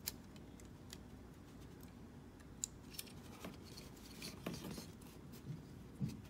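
Faint, scattered clicks and taps of small plastic parts being handled and snapped together as a sword and shield are fitted into the hands of a Bandai Super Minipla Voltron model-kit figure.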